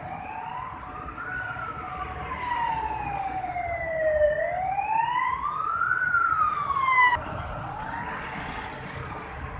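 Emergency vehicle siren wailing in slow rising and falling sweeps, about two up-and-down cycles, then cutting off abruptly about seven seconds in, over the steady noise of street traffic.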